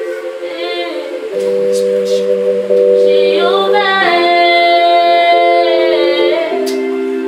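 Worship music: voices singing over long held chords that change every second or two.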